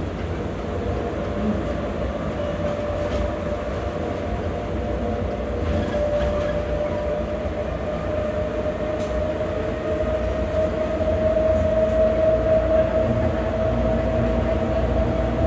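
Ride noise inside a driverless SFO AirTrain people-mover car running along its guideway: a steady low rumble with a whine that rises slowly in pitch and gets louder in the second half.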